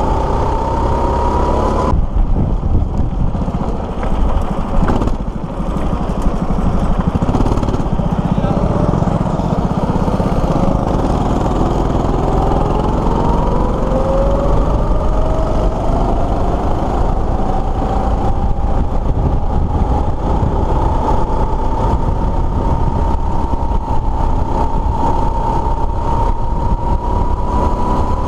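Go-kart's small single-cylinder engine running under throttle, heard from onboard the kart. Its pitch rises, falls back about two seconds in as the throttle comes off, and then climbs steadily through the second half as the kart accelerates.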